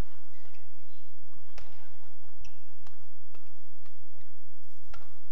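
Racket strikes on a shuttlecock during a fast badminton doubles rally: sharp, crisp hits at uneven intervals, roughly every half second to second, over a steady low hum.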